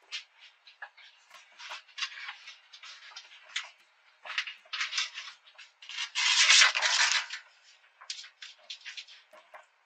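Short scuffing and rubbing noises come and go, with one louder scrape lasting about a second around six seconds in.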